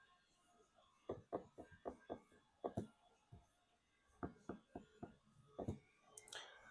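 Light taps and knocks from a phone and small items being handled on a repair bench, in two quick runs of about half a dozen each, then a brief rustle near the end.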